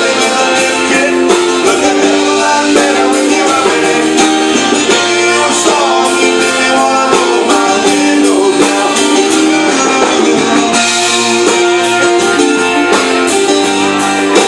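Live band playing a song on electric and acoustic guitars, loud and continuous with a steady strummed beat.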